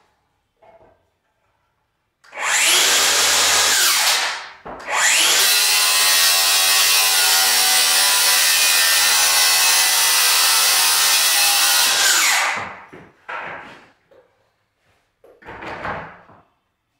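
Circular saw cutting laminate flooring: a short cut of about two seconds, then after a brief pause a longer cut of about seven seconds. The motor's whine rises as it spins up and falls as it winds down. A few short knocks follow near the end.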